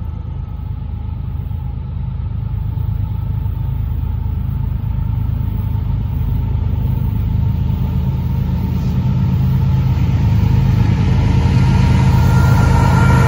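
Approaching freight train led by GE ES44AC diesel locomotive NS 8103: a low engine rumble growing steadily louder as it nears, with wheel-on-rail noise building near the end.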